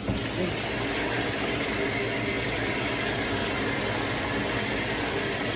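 A steady hissing rush from the stove, with a few faint steady tones in it, that starts and stops abruptly.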